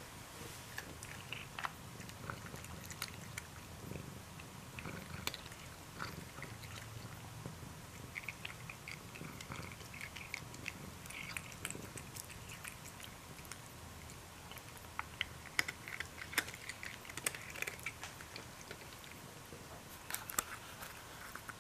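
A cat eating off a plate: close-up chewing and crunching of dry kibble with scattered small clicks, over a low steady purr.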